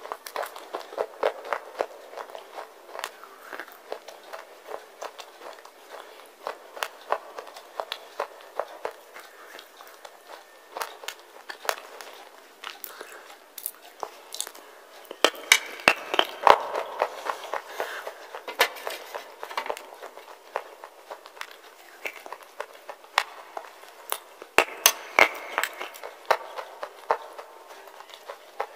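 Wet slate being bitten and chewed close to a clip-on microphone: a steady run of sharp crunches and crackles, with louder clusters of crunching about halfway through and again near the end.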